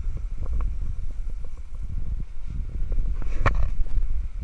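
Wind rumbling on the microphone, with scattered knocks and clicks from the boat deck. The loudest is a sharp clack about three and a half seconds in.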